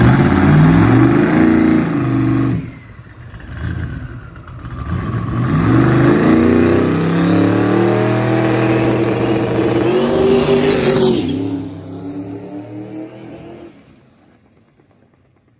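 Box-built 565 cubic-inch big-block Chevy twin-turbo engine in a drag-racing Camaro revving hard on the starting line, easing off about two and a half seconds in, then building again and running off down the strip, its sound falling away to nothing a couple of seconds before the end.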